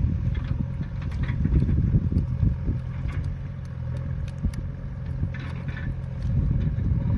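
Hands mixing feeder bait in a plastic bucket: short scrapes and squelchy clicks, several times, under a steady low rumble.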